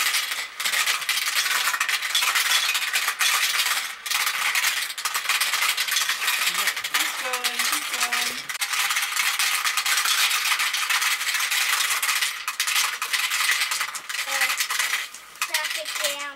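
Marbles clattering in a toy marble run: a dense, continuous rattle of many small hard clicks that thins out near the end.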